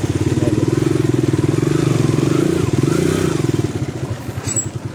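Dirt bike engine running close up while it is ridden, with a fast, even beat. About three and a half seconds in it quietens and slows to a looser beat as the bike pulls up to park.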